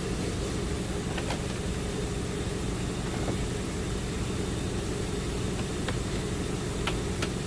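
Steady low rumble with a few faint, sharp clicks scattered through it.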